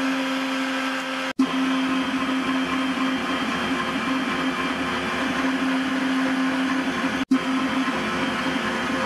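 Electric stand mixer running steadily at its high speed 11 with an even motor whine, its beater whipping sponge-cake batter in a covered stainless steel bowl. The sound cuts out for an instant twice.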